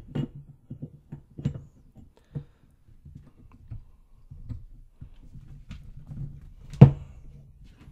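Metal parts of a small lathe carriage being handled and pushed onto its dovetail slide: scattered light clicks and scrapes, with one sharp metal knock near the end.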